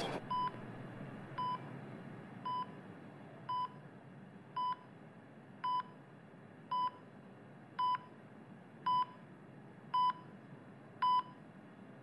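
Bedside patient monitor beeping, a short steady tone about once a second, the pulse tone that marks each heartbeat.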